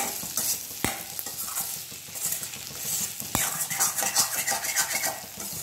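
Diced potatoes sizzling in oil in a stainless-steel kadai while a steel spoon stirs them, scraping the pan, with two sharp clinks of spoon on pan about a second in and again after three seconds. The potatoes are being stirred to keep them from sticking to the bottom.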